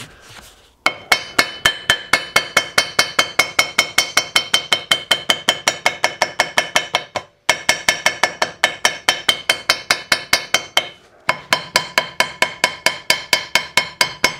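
Hammer tapping rapidly and evenly, about six strikes a second, on cardboard laid over the steel plough blade to cut a template the way a gasket is cut. Each strike sets the blade ringing. The tapping stops twice briefly, about halfway through and again a little later.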